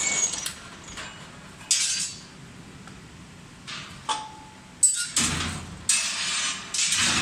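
Red-hot steel dozer-blade cutting edge being pulled out of a heat-treatment furnace onto a steel rack: scattered metal clanks, one with a short ring about four seconds in, and a sharp hit near five seconds. Then a few seconds of loud scraping and clattering as the hot steel slides over the rack.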